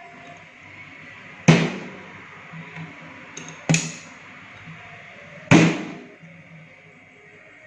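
Three sharp hammer blows on metal, about two seconds apart, each with a short ring: alignment marks being struck into the housing of an AC outdoor unit's condenser fan motor.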